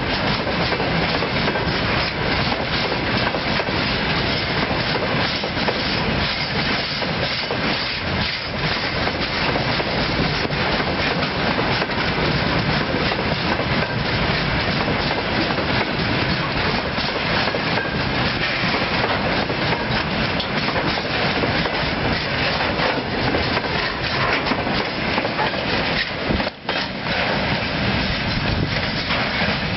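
Freight train of railway tank cars rolling past, a steady rumble filled with a rapid clatter of wheels over the rails. The sound briefly dips about three-quarters of the way through.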